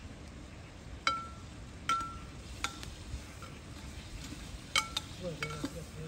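Metal utensil clinking against a metal cooking pot: several sharp, uneven strikes, each ringing briefly, with the loudest about a second in, two seconds in, and near five seconds.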